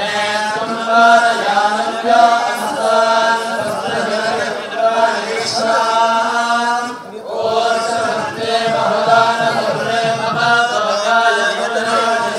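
Sanskrit puja mantras being chanted on a near-steady pitch, with a short break about seven seconds in.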